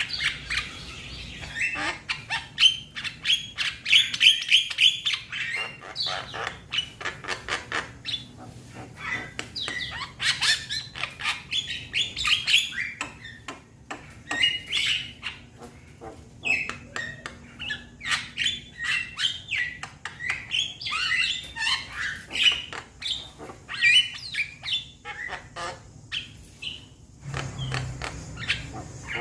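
Young Javan myna (jalak kebo) calling: a fast, dense chatter of harsh chirps, clicks and squawks, in rapid rattling runs with short pauses between them.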